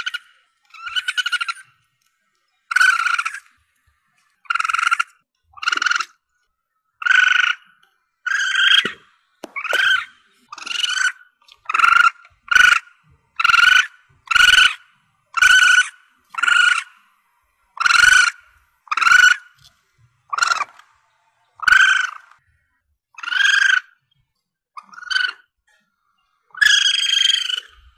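Young common palm civet (Asian palm civet) calling: a series of about twenty short, high, pitched cries, one every second or so with brief gaps between them.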